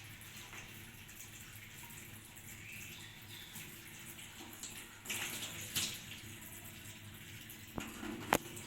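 Water running from a tap while hands are washed, with louder splashing about five seconds in and a couple of sharp clicks near the end.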